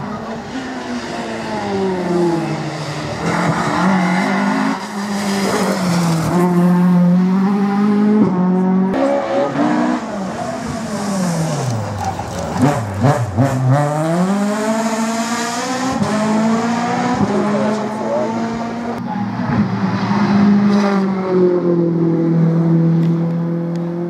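Rally cars driven flat out on a stage, several in turn: the engines rev high, drop and climb again through gear changes and braking for corners.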